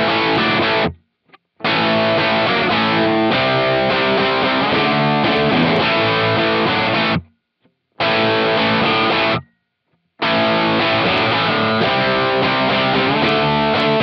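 Distorted semi-hollow Epiphone electric guitar, run through an amp-sim pedal and the Two Notes Torpedo Wall of Sound cabinet-simulation plugin with several virtual cabinets layered at once, playing chords in phrases. Three short silent breaks interrupt it: about a second in, past halfway, and near ten seconds.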